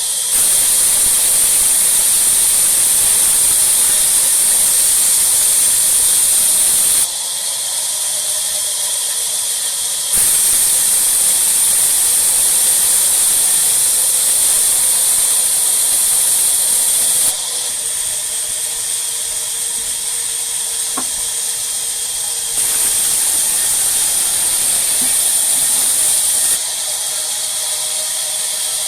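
Sawmill saw and machinery running: a steady, loud, high hiss with a faint hum underneath, jumping abruptly in level several times.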